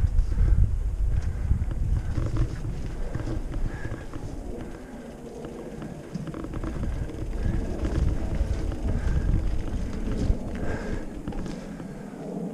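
Mountain bike rolling down a dirt singletrack: tyres on dirt and the bike rattling and knocking over bumps. Wind buffets the microphone, heaviest at the start and easing about five seconds in.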